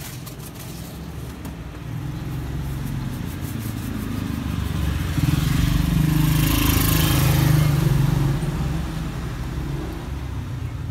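A motor vehicle passing close by: its engine rumble and hiss swell over several seconds, are loudest about six to eight seconds in, then fade.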